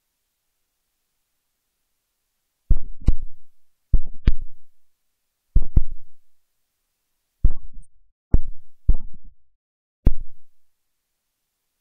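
A series of sharp, low thumps, about ten of them, some in quick pairs, spread over eight seconds against otherwise dead silence.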